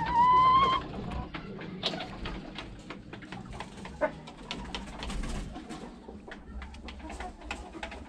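Birds in a coop. One loud call, rising slightly in pitch and lasting under a second, comes right at the start. After it come many small clicks and scratches with a few faint calls.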